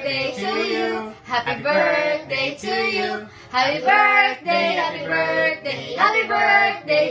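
A woman and a child singing together in phrases of a couple of seconds each, with short breaths between the phrases.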